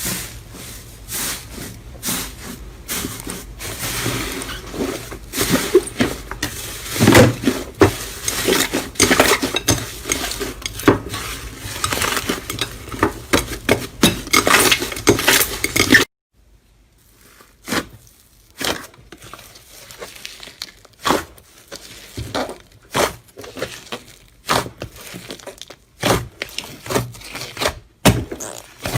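Slime being squeezed and poked by hand: dense crackling and clicking for about the first half, then, after a sudden cut, sparser sharp clicks and pops.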